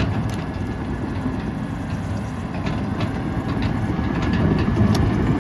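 Caterpillar 320D LRR excavator travelling on its steel tracks: the diesel engine running under load with the track links clanking and clicking. It grows louder near the end as the machine shifts into its higher travel speed.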